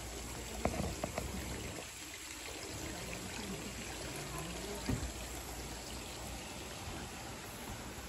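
Steady running water, an even splashing hiss, with a few short sharp clicks about half a second and a second in and again near five seconds.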